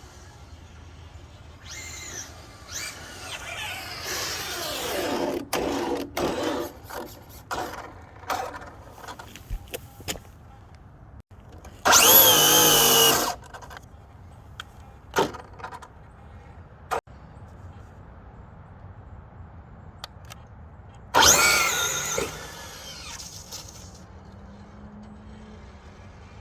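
Traxxas Drag Slash RC car's brushless electric motor whining through three full-throttle drag pulls on a 3S battery, its pitch gliding up and down with each run. The loudest pull is short, about twelve seconds in, and the last comes about twenty-one seconds in. Scattered clicks fall between the runs.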